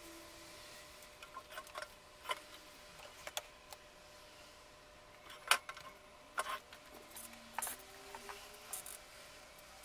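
Scattered light clicks and knocks of objects being handled on a desk, the sharpest about five and a half seconds in, over a faint steady hum.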